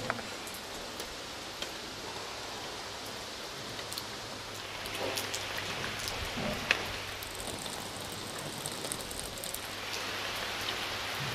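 Steady rain falling, a continuous hiss dotted with the sharp ticks of single drops hitting hard surfaces.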